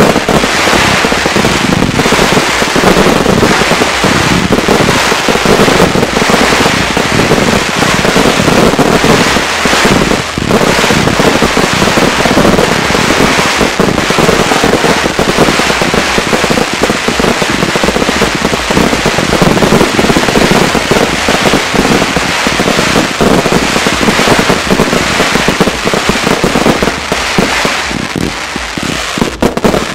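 Fireworks display in a dense, continuous barrage: rapid overlapping bangs and crackling from bursting aerial shells, thinning briefly near the end.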